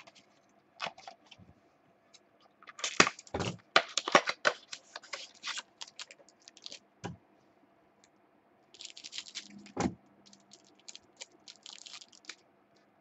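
Trading cards and their packaging being handled close to the microphone: scattered clicks, scrapes and short rustling bursts, busiest about three to five seconds in and again from about nine seconds, with a firmer knock just before ten seconds.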